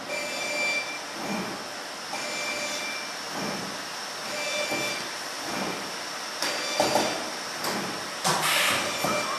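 Dual roll-spot seam welder running: a steady mechanical noise with a short high beep repeating about every second, and several sharp bursts of hiss in the second half.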